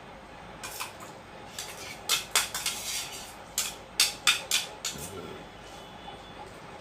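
Tableware clinking and tapping: sharp clicks of hands and a spoon against metal dinner plates and bowls, coming in quick clusters, loudest around two seconds and four seconds in.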